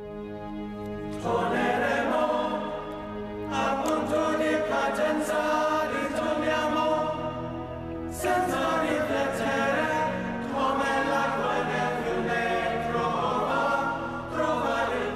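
A choir singing slow, sustained notes in a series of phrases, each note held for a few seconds.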